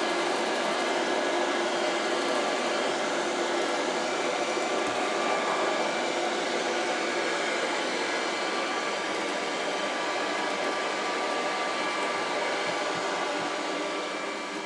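GUTREND JOY 90 Pet robot vacuum cleaner running: a steady whirring hum with a few steady tones in it, starting to fade near the end.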